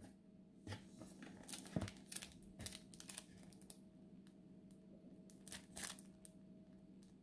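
Clear plastic sleeve crinkling and rustling in several short bursts as it is handled and lifted out of a cardboard box, with one low knock about two seconds in. A faint steady hum runs underneath.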